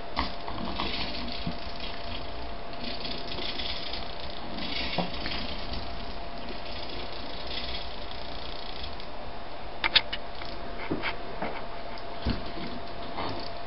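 Servo motors whirring in short bursts as they tilt a self-levelling wooden platform back to level while the vehicle is rocked by hand, over a faint steady whine. A few sharp clicks and knocks from the handled frame come about ten seconds in, and more follow near the end.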